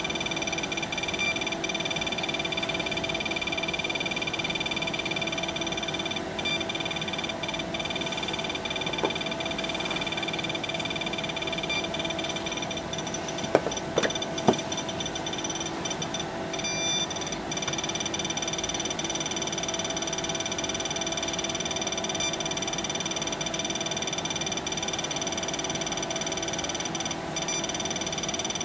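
SOEKS dosimeter sounding its radiation alarm, a steady high-pitched electronic tone set off by the radium-226 luminous paint on an old military compass. The tone breaks off briefly twice, and a few sharp clicks come about halfway through.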